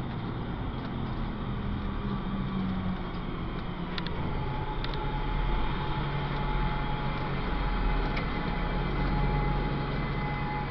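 Road traffic on a city street: a steady vehicle engine drone, with a faint steady whine coming in about four seconds in.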